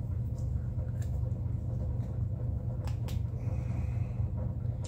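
Steady low hum with a few faint clicks of a plastic inline fuse holder and wires being handled, two of them close together about three seconds in.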